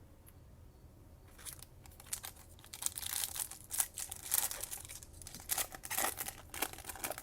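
Trading-card pack wrapper being torn open and crinkled, an irregular run of rustling and tearing that starts about a second in.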